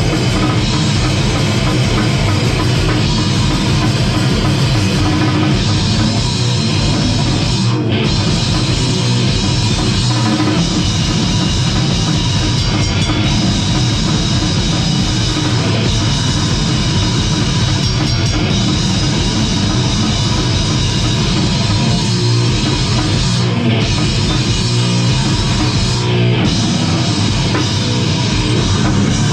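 Gore grind band playing live: loud, dense heavy music with rapid, driving drumming that runs without a break.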